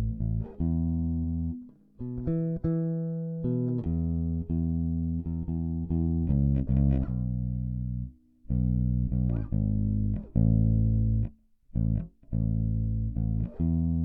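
Sterling by Music Man Ray4 electric bass with a Bartolini pickup, played through its stock preamp with the bass and treble controls fully cut. It plays a run of plucked notes and short phrases, some notes held and some short, with brief breaks between the phrases.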